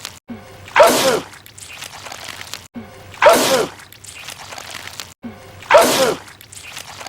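A man's loud sneeze, the same clip repeated three times about two and a half seconds apart, each sneeze with a falling pitch.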